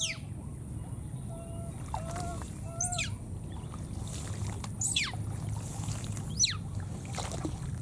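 Short, high squeals from a small animal, each dropping steeply in pitch, about five times at irregular intervals, with a few lower short notes between the first ones, over a steady low hum.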